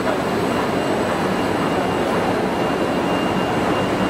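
Extrusion coating lamination line running: a steady, even machine noise with faint high-pitched whines as the printed film runs over its rollers.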